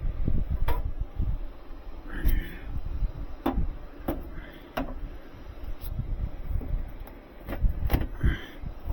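Sheet-metal access panel of an HVAC air handler being handled and fitted back on: a series of separate knocks and clicks, with brief scrapes of metal and a low rumbling handling noise.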